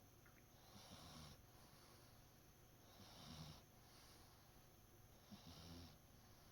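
A sleeping cat snoring deeply and faintly, three slow snoring breaths about two and a half seconds apart, each a low rumble with an airy hiss.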